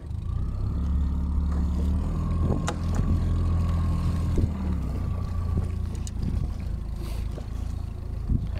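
Small boat's outboard motor running under throttle. It picks up in pitch about a second in as the boat speeds up, then eases off around five seconds in.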